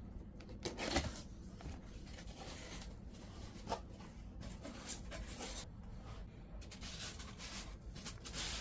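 Packaging being handled during an unboxing: scratchy rustling and rubbing in irregular stretches, with a couple of light knocks.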